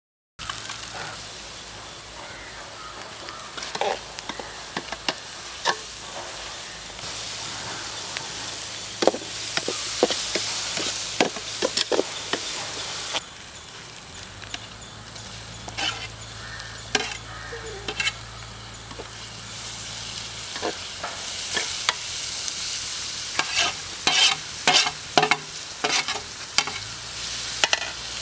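Food sizzling as it fries in a pan, stirred with a spoon that scrapes and clicks against the pan many times over a steady frying hiss.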